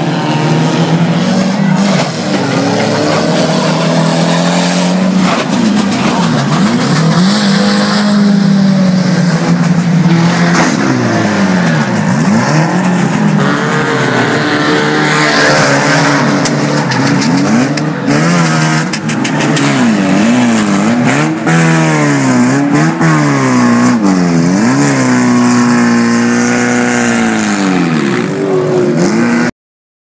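Stock car engines revving up and down as the cars lap an oval track, the pitch rising and falling every second or two as they pass and brake into the corners. The sound cuts off abruptly near the end.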